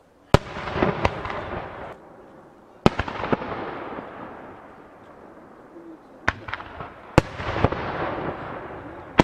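Aerial fireworks shells bursting: about eight sharp booms, a cluster near the start, one or two around three seconds in, and another cluster in the second half. Each boom is followed by a long rolling echo that dies away.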